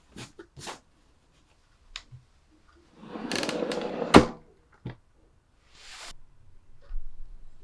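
Large under-bed storage drawer of a white IKEA NORDLI bed frame sliding shut on its runners about three seconds in, ending in a sharp knock as it closes. A few faint light taps come before it.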